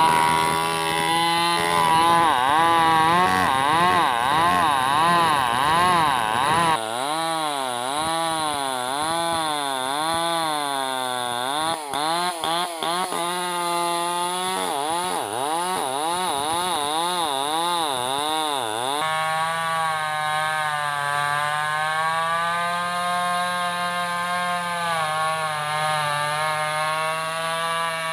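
Two-stroke chainsaw running under load as it cuts through a large log, its engine pitch swinging up and down continuously as it bogs in the cut and picks up again. The sound changes abruptly twice; in the last third the pitch holds steadier.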